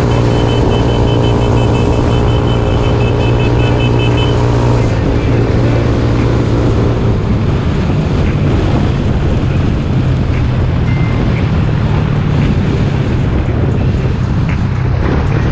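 A Jasscol 200cc trike's engine running under way, with wind on the microphone. The engine holds a steady hum at first and becomes less even after about five seconds.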